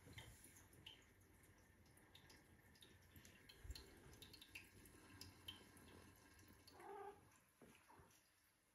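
Faint rustling and light claw taps of two Siberian kittens wrestling on a rug, with a soft thud partway through and one short kitten cry about seven seconds in.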